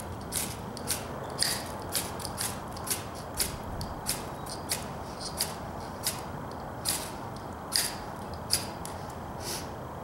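Ferro rod scraped hard with the back of a small knife, a quick series of short rasping strikes, roughly two a second with brief pauses. Each strike showers sparks onto a bird-nest tinder bundle in a metal bowl, trying to light it.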